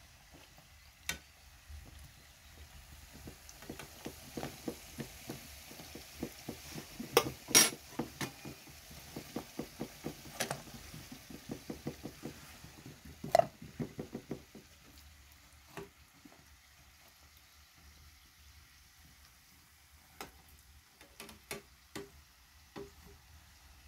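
Dough pastries deep-frying in a pan of hot oil, sizzling with rapid crackling pops. There are a couple of sharp clinks of a metal skimmer against the pan. After about fifteen seconds the frying sound drops away to a few scattered taps.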